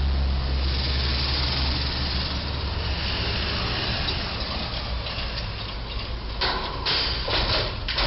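Street traffic with a steady engine rumble, then, from about six seconds in, a box truck's roof striking the low bridge's overhead beam: several loud metal bangs and crunches in quick succession.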